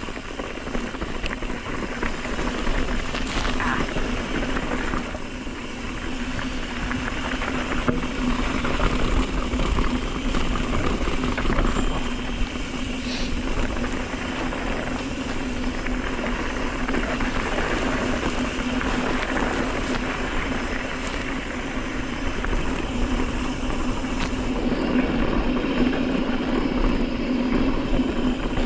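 Mountain bike rolling fast downhill on a dirt fire road: steady rush of wind on the microphone and tyres running over dirt and gravel, with a low steady hum and the odd rattle.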